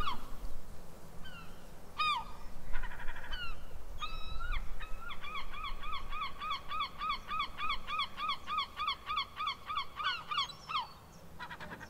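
Gulls calling: a few separate calls, then a long, even series of about three calls a second that runs from around five seconds in until near the end.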